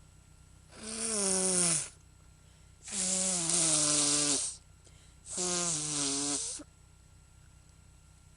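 A person's voice making three long, breathy, voiced groans, each falling in pitch, about two seconds apart.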